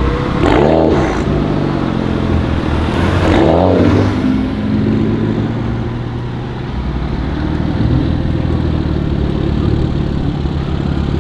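BMW 335i E92's turbocharged 3.0-litre straight-six with a catless exhaust revved twice, each rev rising and falling in pitch, then settling into a steady run for the rest of the time.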